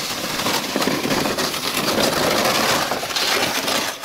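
Sled sliding over snow: a steady, loud scraping hiss that drops away abruptly at the very end.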